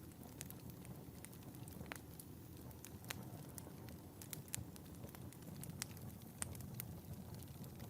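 Wood fire burning in a fireplace: a low steady rumble of flames with irregular sharp crackles and pops, a dozen or so scattered through.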